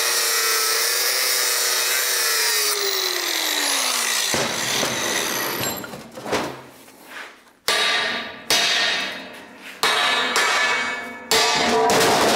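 A power tool running, its whine falling in pitch as it winds down, then several short bursts of tool noise, each starting sharply and fading over about a second.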